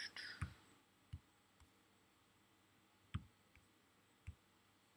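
Four faint, widely spaced computer mouse clicks over near-silent room tone.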